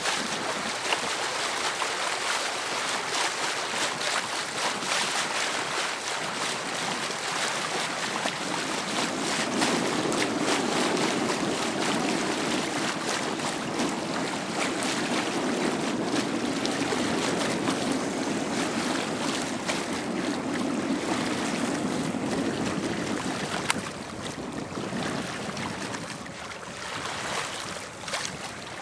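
Steady rush of water and wind from a small boat moving over calm sea, with a deeper rumble through the middle stretch that falls away about three-quarters of the way through.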